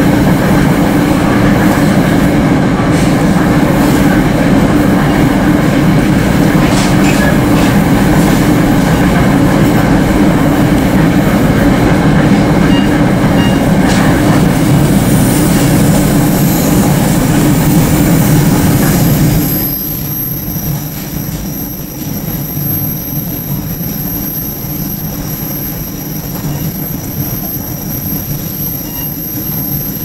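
Steady rumble and hiss of a passenger train running, heard from inside the car. About two-thirds of the way through it drops noticeably quieter, and a thin high whine becomes audible.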